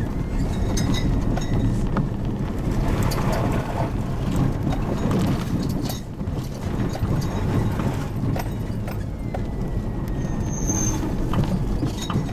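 Hummer 4x4 driving a rutted dirt trail, heard from inside the cab: a steady low rumble of engine and tyres, with frequent knocks and rattles as it bounces over the ruts.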